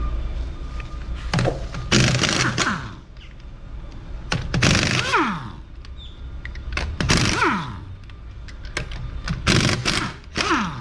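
Impact wrench loosening the 19 mm lug nuts on a rear wheel: four bursts of rapid hammering, each followed by the motor winding down in a falling whine.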